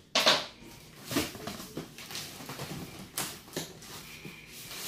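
Packing tape being pulled off a cardboard box and the cardboard flaps being handled: a short loud burst near the start, then scattered scrapes and rustles.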